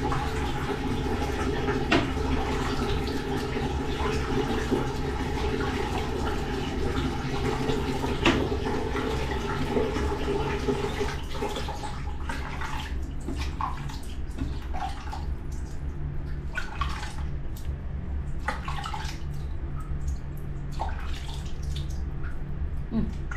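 Water running steadily in a small tiled bathroom for about the first half, then splashing and dripping as a wet baby monkey is washed by hand.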